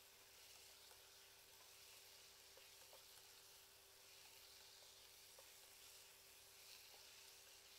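Faint sizzle of ground meat frying in a small aluminium saucepan, with soft scrapes and ticks of a plastic spatula stirring it.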